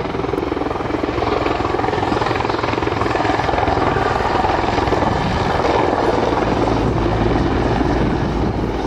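Mil Mi-24 attack helicopter in a low display pass, its twin turboshaft engines and five-blade main rotor making a loud, steady, rapid rotor beat.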